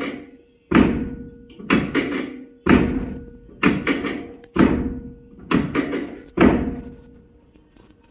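A regular series of heavy thumps about a second apart, each fading quickly, over a faint steady tone.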